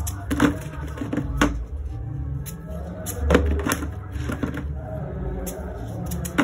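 Kitchen knife slicing through raw peeled yam held in the hand, pieces dropping into a plastic bowl: about five short, sharp cuts. Soft background music with a low beat runs underneath.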